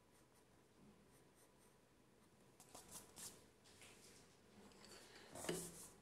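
Colored pencil scratching faintly on paper in a few short, light shading strokes a little past halfway, then one brief louder rustle near the end.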